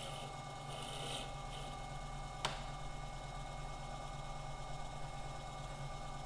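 Small bench lathe running with a steady hum while a cutting tool takes a light pass across the cue tip; one sharp click about two and a half seconds in.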